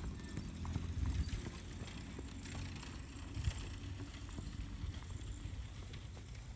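A horse's hoofbeats on a sand arena, a run of dull irregular thuds as it canters.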